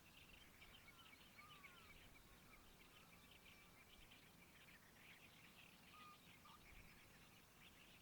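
Faint chorus of small birds chirping continuously over a quiet riverside background, with a few short whistled glides in the first two seconds and one brief whistle about six seconds in.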